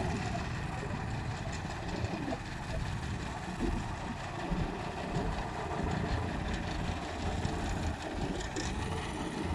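Wheeled excavator's diesel engine running as it works, heard from a distance, over a low, uneven rumble.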